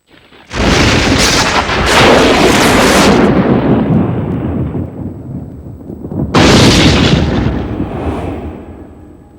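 Two loud rumbling booms from a film distributor's logo, like thunder or explosions. The first hits suddenly about half a second in and carries on for a few seconds before fading; the second hits about six seconds in and dies away.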